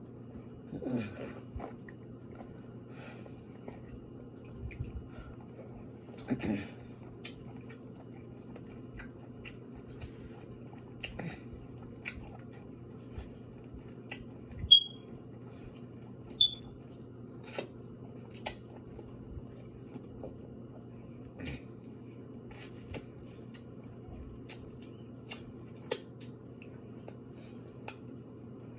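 Close-miked eating of a seafood boil: scattered chewing, lip smacks and small clicks, with two brief high squeaks about halfway through, over a steady low hum.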